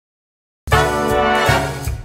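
Dead silence, then background music starts abruptly about two-thirds of a second in, full-band with a pulsing bass line.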